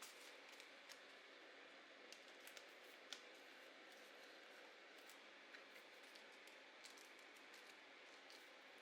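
Quiet handling of paper and craft materials: scattered faint clicks and taps over a steady hiss, with one sharper click about three seconds in.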